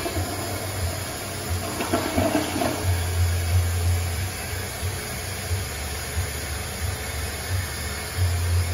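Older Crane Hymont toilet flushing: a steady rush of water swirling and draining down the bowl, with a low rumble that comes and goes.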